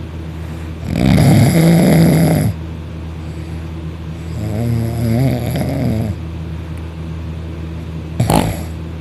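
Loud snoring from a deeply asleep sleeper: a loud rasping snore about a second in, a softer snore in the middle, and a short sharp snort near the end.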